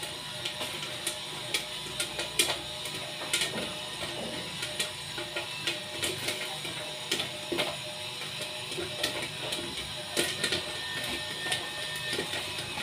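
Popcorn machine kettle running on test: a steady motor hum with irregular sharp pops, one or two a second, as kernels burst inside the kettle.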